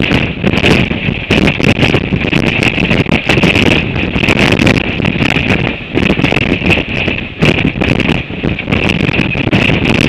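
Strong gale-force wind buffeting the microphone, a loud, continuous rush that surges in gusts.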